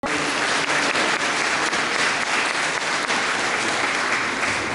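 Audience applauding steadily in a church: a dense, even patter of many hands clapping.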